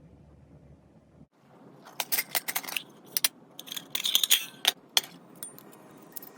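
Small metal camp cookware and utensils clinking and rattling as they are handled and stacked together, a quick run of sharp clinks starting about two seconds in.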